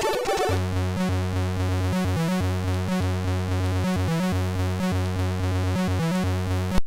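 Commodore 64 SID chip music from a 6581 sound chip. About half a second in, the tune changes to a steady, repeating bass pattern with short notes above it. Near the end it cuts off abruptly with a click as the demo leaves this part.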